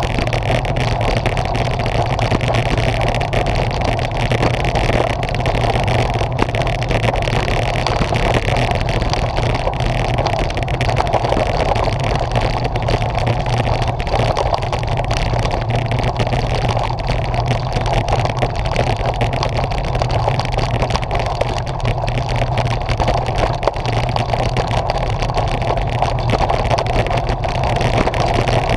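Steady rush of wind over a handlebar-mounted camera's microphone, mixed with the continuous rumble and rattle of road-bike tyres rolling over cobblestones.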